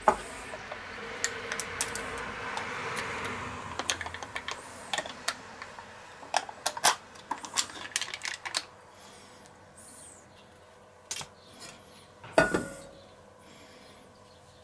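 Kitchen utensil noises: a knife and spoon clicking and scraping against a plastic crème fraîche tub and a stainless steel bowl as the cream is scraped into the chopped herbs. A scraping hiss comes first, then scattered clicks, and a single loud knock comes near the end.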